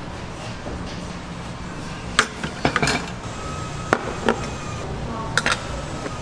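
Kitchen clatter: several sharp knocks and clinks of utensils and dishes, bunched in the middle seconds, over a steady background hum.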